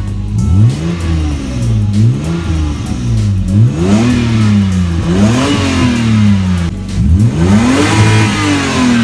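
Lexus IS300's 2JZ-GE inline-six, running through a muffler-deleted exhaust, revved by hand on the accelerator pedal about five times, each rev climbing and then falling back toward idle.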